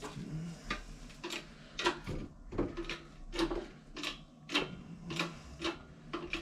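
Hydraulic shop press's bottle jack being pumped by its handle, a sharp click with a short low thud on each stroke, about one and a half strokes a second. The press is forcing a new cylinder liner into an OM617 diesel block.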